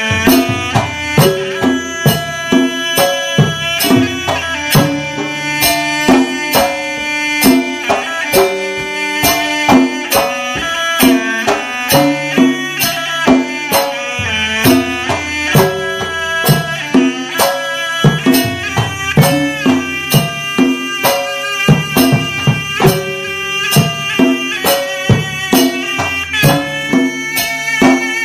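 Background music with a steady drum beat, about two strokes a second, under a melody line.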